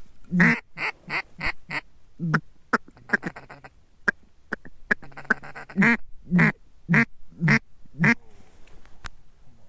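Series of loud duck quacks, evenly spaced about half a second apart: a short run near the start, scattered quacks in the middle, and a run of five loud quacks about six seconds in.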